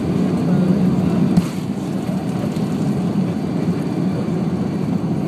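Airbus A340-600 on its takeoff roll, heard from a cabin seat over the wing: the steady low rumble of its four Rolls-Royce Trent 500 engines at takeoff power, mixed with runway noise. A single thump comes about a second and a half in, after which the noise is a little quieter.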